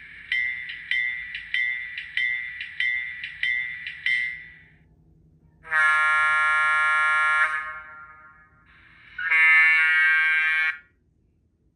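HO-scale GE 44-ton diesel switcher's DCC sound decoder playing through the model's small speaker: the locomotive bell rings about seven strikes at a steady pace. Then the horn sounds two blasts, the first about two seconds long and the second a little shorter.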